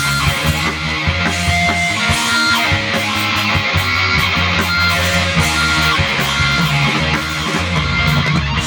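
Rock band playing live: an instrumental passage with no singing.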